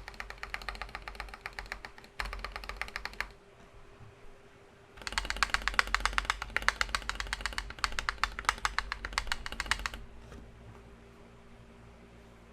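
Typing on a mechanical keyboard with Gateron Pro Yellow Milky linear switches, in a Rakk Lam-Ang Pro with its case foam removed. A run of keystrokes lasts about three seconds. After a pause of about a second and a half comes a louder, denser run of about five seconds, which stops about two seconds before the end.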